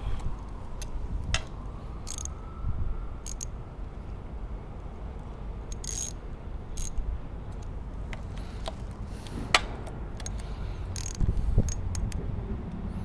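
A small hand ratchet with a 4 mm hex bit clicking as bolts on a bicycle are turned, with scattered sharp clicks and knocks of the tool on metal.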